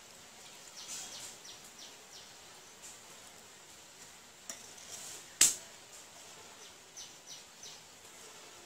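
Steel spoon scraping and clinking against a steel bowl while stirring rice flour and water, in short runs of three or four quick scrapes, with one sharp, loud clink about five seconds in.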